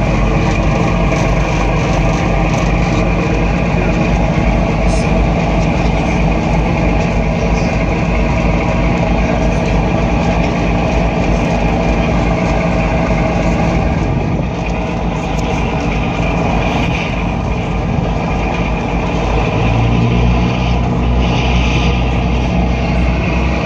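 Steady drone of a tour boat's engine running under way, heard from its deck. About twenty seconds in the low engine note deepens and grows stronger.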